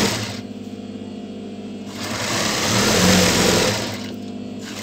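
Juki sewing machine stitching a seam, in one run of about two seconds starting about two seconds in, quieter before and after.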